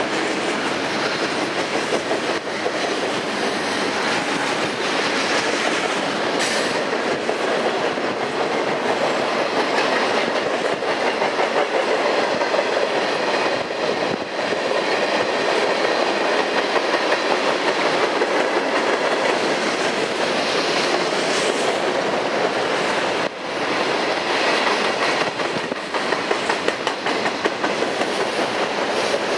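CN freight train's cars rolling past steadily, steel wheels clicking over the rail joints in a continuous clickety-clack, with a regular run of louder clicks near the end.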